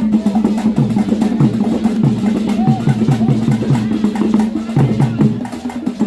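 Traditional drum ensemble playing a dense, fast rhythm: many hand-drum strokes, some low strokes falling in pitch, with sharp wooden clicks on top.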